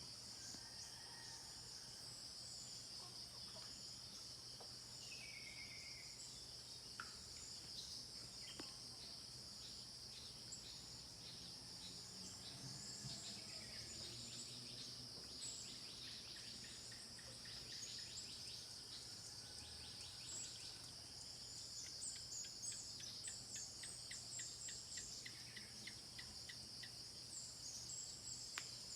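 Faint, steady chorus of insects such as crickets, a continuous high-pitched shrilling, with scattered short high bird chirps over it and a low steady hum beneath.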